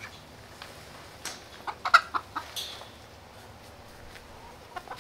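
Backyard chickens clucking in a short run of calls, loudest about two seconds in, with a few light knocks.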